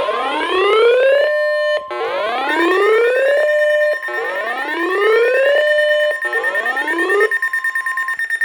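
Emergency alert tones announcing a tornado warning: a steady tone runs under a whooping alarm that rises in pitch and holds, repeating four times about every two seconds. A second, higher steady tone joins a couple of seconds in.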